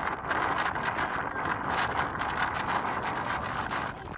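Hurricane-force wind blowing hard over the microphone in gusts, buffeting it with loud, uneven wind noise.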